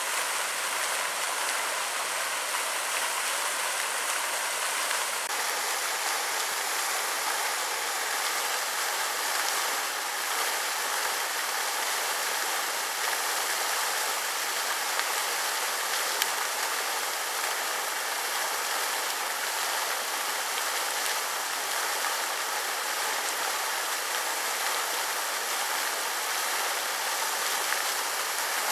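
Steady rushing of splashing water, an even hiss with no breaks.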